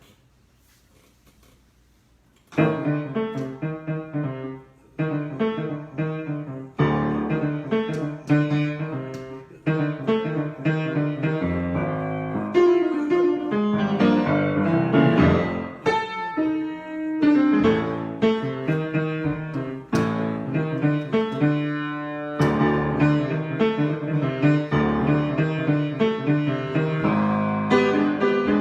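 Solo keyboard improvisation, most likely piano, starting about two and a half seconds in with chords and melodic runs that are played freely and broken by brief pauses.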